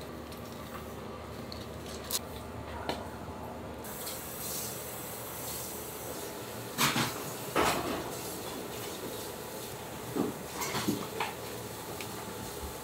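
Working kitchen background: a steady equipment hum with scattered knocks and clatter, the loudest a pair of bangs about halfway through and a few smaller knocks a little later.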